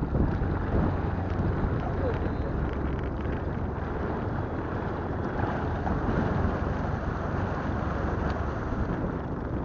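Steady rushing noise of a boat under way on the lake, with wind buffeting the microphone.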